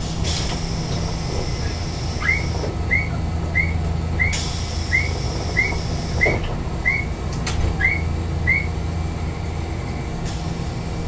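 A stopped Randen tram's steady low hum. Brief hisses come near the start and again about four seconds in. In the middle, a run of about ten short, evenly spaced chirps sounds at roughly one and a half a second.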